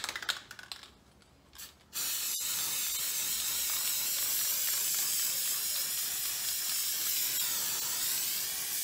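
Aerosol can of spray-on impact (contact) adhesive hissing steadily as it is sprayed over the bar and foam strip, starting about two seconds in.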